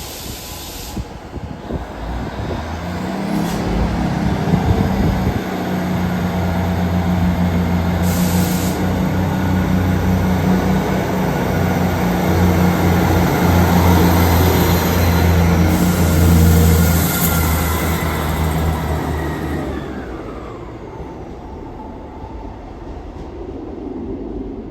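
A passenger train running past close by: a steady low engine hum with rumble and hiss that builds to its loudest about two thirds of the way through, then a whine that falls in pitch as the sound fades near the end.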